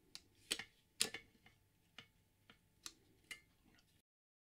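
A series of small, sharp plastic clicks and taps as a white wire connector is worked loose from the circuit board inside a Niche Duo grinder's housing, the loudest a pair about half a second and a second in. The sound cuts to dead silence near the end.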